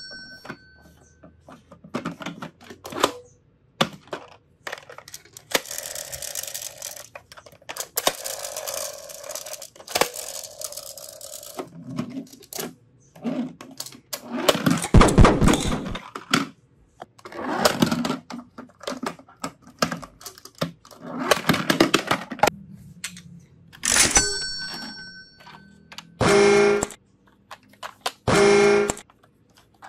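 Plastic toy vehicles handled and rolled on a wooden tabletop: repeated clicks, knocks and rolling scrapes of plastic wheels and bodies. About four seconds from the end a short ringing chime sounds, followed by two short pitched toy sounds.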